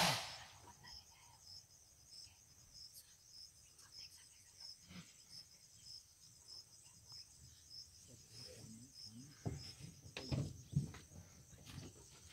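Cricket chirping steadily in the background, one high pulse about every half second or a little more. There is a sharp knock right at the start and a few louder low knocks or rustles near the end.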